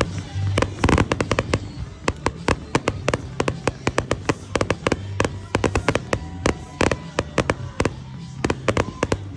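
Fireworks going off: a rapid string of sharp bangs and reports, several a second, coming thickest about a second in and again near the end.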